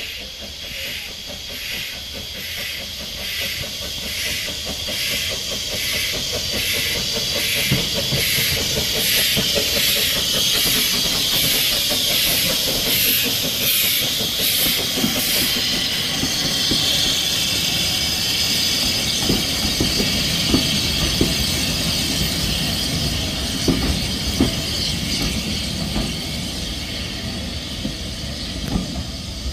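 SECR P class tank locomotive No. 323 'Bluebell' working a train past, its exhaust beating steadily at a little over one beat a second, with a strong steam hiss that peaks in the middle. The coaches' wheels then click over the rail joints as the train moves away.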